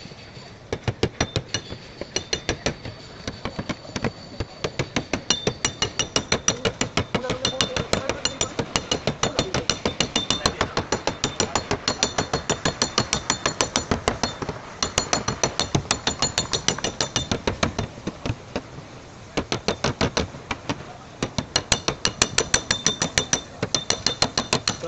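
A hammer striking a wooden block held against a car's body panel, knocking a dent out of the sheet metal. It is a steady run of sharp taps, about four a second, with a brief pause about three-quarters of the way through. A faint high ringing runs under the taps.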